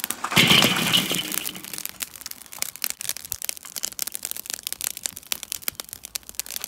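Lit Marabu lumpwood charcoal tipped out of a chimney starter onto a kettle grill's grate, a loud clattering rush in the first second or so. The hot coals then crackle with many sharp, irregular pops.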